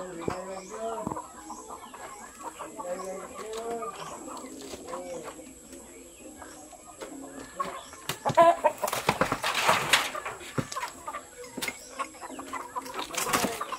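Domestic chickens clucking in a run of short, repeated calls. From about eight seconds in, a louder rustling scuffle, which comes again briefly near the end.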